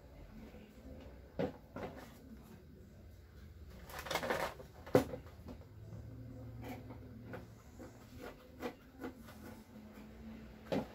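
Scattered light knocks and clicks from an LCD TV panel being handled on a workbench, with a short scraping rustle about four seconds in, a sharp click just after it, and another click near the end.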